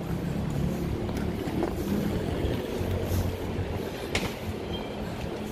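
Steady low rumble of outdoor street ambience on a paved walkway, with a wheeled suitcase rolling over the paving close by in the first couple of seconds. One sharp click about four seconds in.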